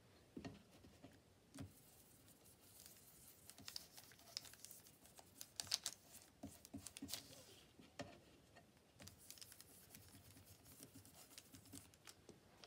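Faint dabbing and scratching of a small makeup brush applying distress ink to crinkled cash register paper, with soft taps and rustles of the paper under the hands, busiest in the middle.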